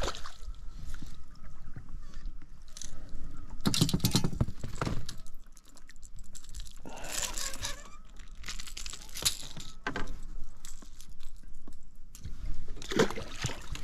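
A hooked largemouth bass splashing at the boat's side and being lifted out by hand: a few short bursts of splashing and handling noise.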